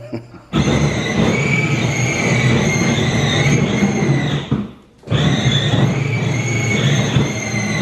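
Electric ride-on bumper car's drive motors running with a high whine over a rumble, cutting out for about half a second a little past the middle and then starting again.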